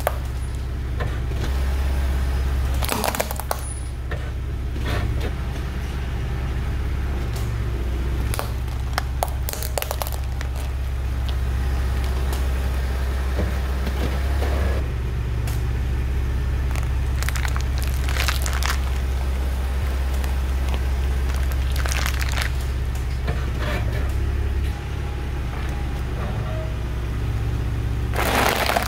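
Car tyre rolling over plastic felt-tip markers, cracking and snapping them in scattered sharp cracks, over the steady low rumble of the car's engine. A loud crunch comes near the end.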